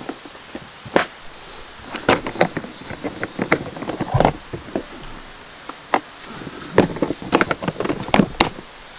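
Hard plastic modular storage case being handled and its metal side latches snapped. The result is a string of sharp clicks and knocks, some in quick clusters, that stops near the end.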